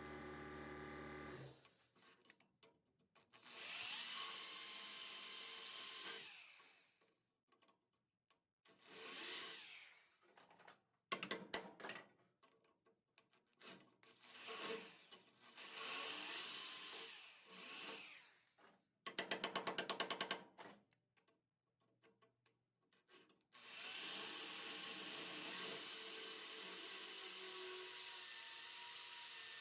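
Power tool working the sheet-metal floor pan of an early Ford Bronco, run in a series of short bursts and then one long continuous run near the end. A steady hum sounds for the first second and a half and then cuts off.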